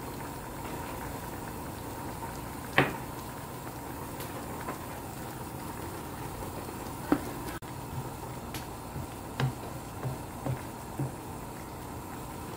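Pork, potato and onion stew simmering in a frying pan with a steady bubbling hiss. A wooden spatula stirs it, knocking the pan sharply about three seconds in and again near seven, then tapping lightly several times in the second half.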